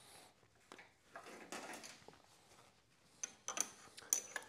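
Light metallic clicks and clinks as the valve grinding machine's collet chuck is slid and adjusted against its spring-loaded stopper, with a few single clicks and then a quick cluster of sharper clinks in the second half.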